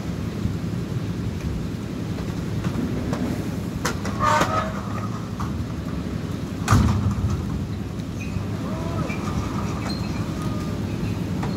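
Site concrete mixer's engine running with a steady low drone as a rooftop slab is poured, with a few sharp knocks and clanks; the loudest knock comes a little past the middle.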